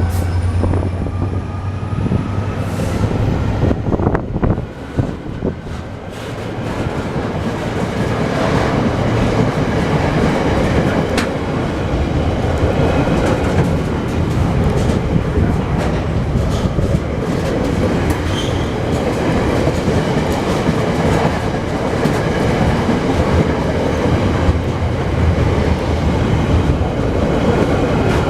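A train running past on the line, wheels clicking over the rail joints under a steady low hum; the noise dips a few seconds in, then builds about six seconds in and stays loud.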